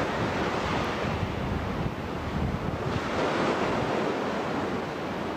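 Ocean surf washing against a rocky shore, with wind buffeting the camcorder microphone.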